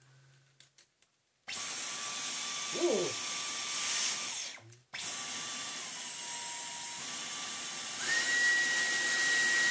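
Dyson V11 cordless stick vacuum's digital motor, on a replacement main body, switching on with a high whine about a second and a half in, cutting out briefly, then restarting and stepping through its power settings: a small dip in pitch, back up, then a jump to a much higher pitch about eight seconds in. It runs smoothly in each setting, which shows the original unit's motor to be at fault.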